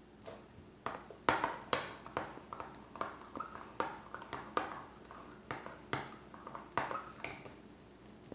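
A spoon stirring thick, freshly drained mascarpone in a small container, knocking and scraping against its sides in a run of short clicks, about one or two a second.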